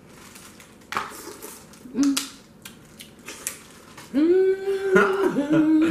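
Crab-leg shells cracking and snapping in the hands, a few sharp cracks spread over the first few seconds. Then a held, hummed "mmm" of enjoyment, twice, near the end.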